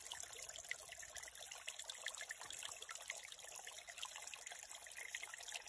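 Faint, steady trickle of shallow creek water.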